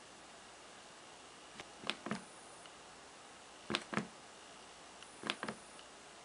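Page-turn buttons on a Nook Simple Touch and an original Nook e-reader pressed in quick succession: three pairs of faint clicks, about a second and a half apart.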